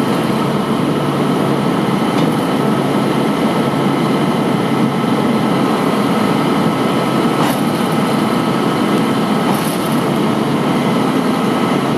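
Diesel engine of a 2000 Volvo WG64 crane truck running steadily, with a steady high whine over it, while the truck-mounted hydraulic crane swings its fork attachment. A faint knock about seven and a half seconds in.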